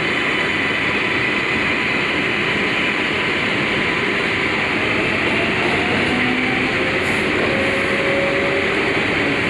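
R142A subway train running between stations, heard from inside the car: a steady rumble and wheel-on-rail noise, with a faint whine that rises in pitch about five seconds in.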